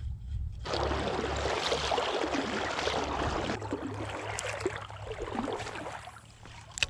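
Creek water rushing and splashing close by, starting abruptly about a second in and fading down a few seconds later, with a sharp click near the end.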